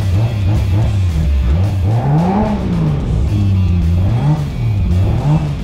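Drift car's engine heard from inside the cabin, idling with throttle blips: it revs up and falls back about two seconds in and again briefly near the end. Music plays along.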